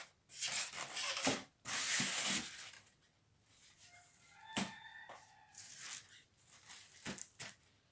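Styrofoam packing and a cardboard box rubbing and scraping as they are handled: a few short scraping rustles in the first two and a half seconds, then a single sharp knock with a brief squeak about four and a half seconds in and a couple of lighter knocks after.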